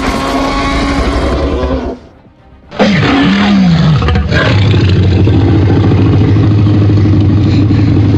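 Dubbed dinosaur roar sound effects: a roar of about two seconds, a short pause, then a longer roar that opens with a falling cry and holds steady for about five seconds.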